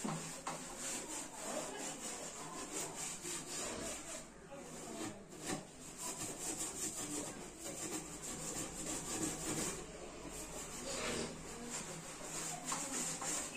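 Hand wiping and scrubbing over the top of a kitchen chimney hood: a continuous, uneven rubbing of repeated strokes, cleaning grease off the hood.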